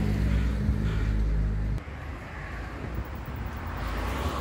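A steady low engine hum that cuts off abruptly about two seconds in, leaving faint outdoor background noise.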